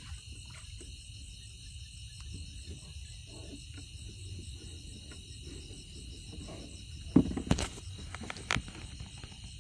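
Steady chorus of night crickets and other insects, a continuous high pulsing trill. A few sharp knocks cut through about seven seconds in, with one more a second later.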